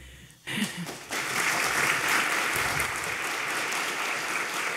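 Audience applauding at the end of a talk, the clapping building up about a second in and holding steady, after a brief word from the speaker.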